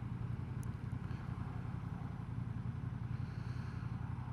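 Honda Transalp XL750's parallel-twin engine running steadily under the rider.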